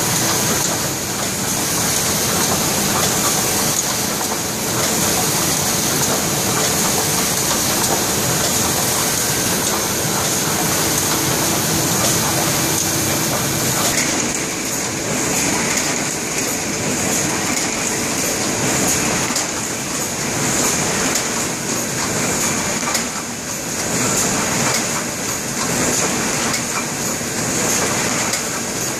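Printing presses running: the steady, fast mechanical clatter of a Waite & Saville steel-engraving (die-stamping) press and the neighbouring presses in the shop. The mix of machine noise shifts about halfway through.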